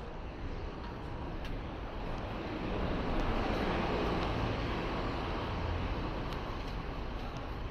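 Street traffic noise, with a passing vehicle's rumble swelling a couple of seconds in, peaking, and easing off after about six seconds.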